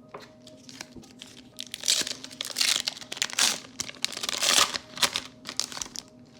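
Foil wrapper of a Magic: The Gathering set booster pack crinkling and tearing as it is ripped open, in a run of loud crackling bursts from about two seconds in until near the end.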